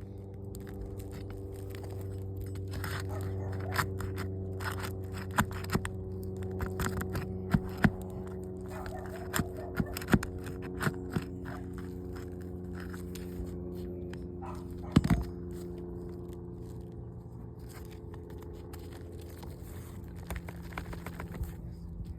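Roof shingles being worked loose and pulled up: scattered scrapes, cracks and sharp knocks, the loudest about fifteen seconds in, over a steady low hum.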